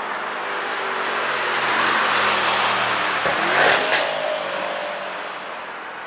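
Mercedes-AMG E63 S twin-turbo V8 driving past at speed, growing louder as it approaches, peaking as it passes about three and a half seconds in, then fading away. Its engine pitch drops at the pass, and a sharp exhaust crack comes just before four seconds, the pop that the ECU tune is set to make.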